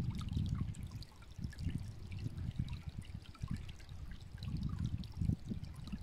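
Shallow stream trickling and babbling over stones and vegetation, with many small bubbling ticks over a low rumble that swells and fades.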